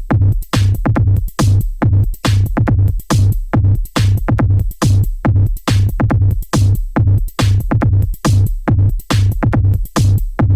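Electronic dance music with a heavy kick drum beating steadily about twice a second.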